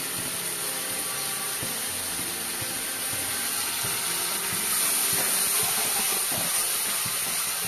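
Steady sizzling hiss of a spiced masala gravy cooking in a kadai on the stove, with a few faint knocks of stirring.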